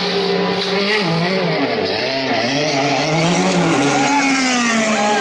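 DTM touring car engines running in the pit lane, several at once, their pitch sliding up and down as they rev and pass.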